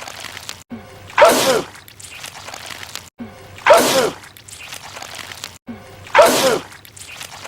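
A man's sneeze looped over and over: three loud sneezes about two and a half seconds apart, each a sudden burst whose voice falls in pitch. A brief dropout comes just before each one where the loop repeats.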